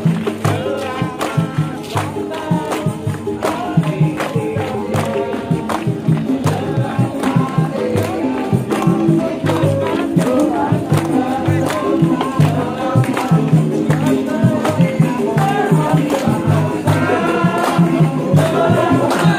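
Music with group singing over a steady beat of percussion and a repeating bass line.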